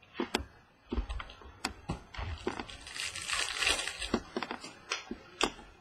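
Baseball cards being handled in the hands: sharp clicks and taps as cards are flipped and squared against one another, with a brief dry rustle about halfway through as they slide past each other.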